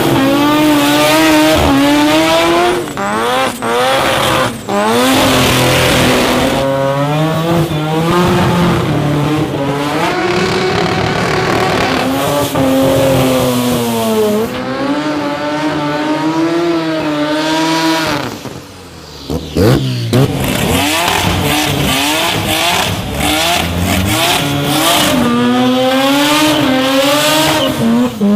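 Rotary-engined Mazda drag cars doing burnouts one after another. The engines are held at high revs with a wavering, buzzing pitch over tyre squeal, with a brief lull about two-thirds of the way through.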